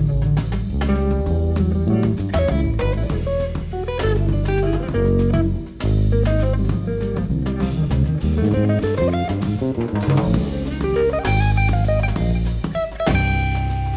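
Jazz band playing: electric guitar lines over low bass notes and a busy drum kit, with a brief break about six seconds in.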